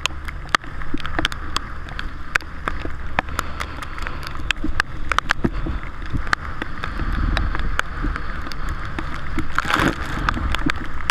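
Underwater sound picked up by a camera: irregular sharp clicks and crackle over a low rumble, with a brief rushing swoosh about ten seconds in.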